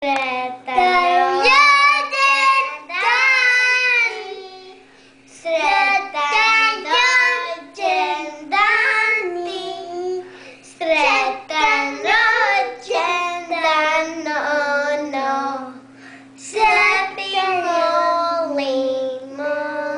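Young children singing together into toy microphones, in sung phrases broken by short pauses.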